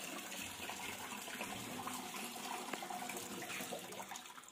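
Tap water running steadily into a steel bowl of ice cubes, filling it with ice-cold water.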